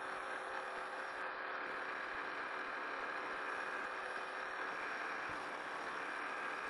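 Precision Matthews PM-1127VF-LB metal lathe running steadily with its spindle at about 58 rpm, turning down the threads on a short length of Acme threaded rod.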